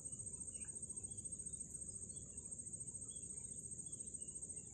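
Steady, high-pitched chirring of insects with a fast pulse, and faint bird chirps here and there.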